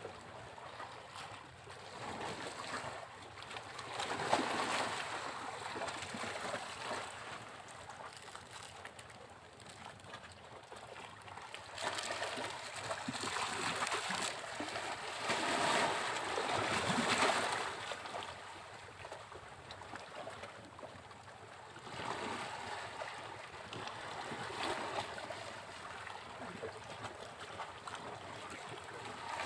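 Sea waves breaking on a beach, a rushing surf noise that swells and falls back in slow surges. The biggest surge comes about halfway through.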